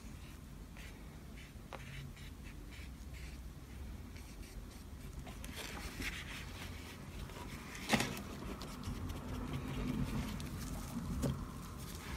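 Faint handling sounds of painting with alcohol inks: light scratching and dabbing of a painting tool on the paper, with small scattered taps. One sharp click about eight seconds in is the loudest sound.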